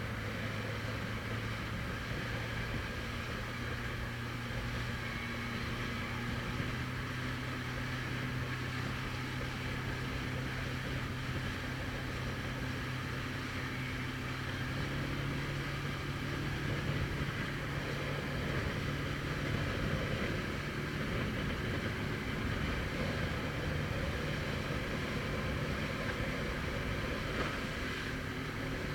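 Motorboat engine running steadily over a constant hiss. Its hum rises in pitch about halfway through as the boat speeds up.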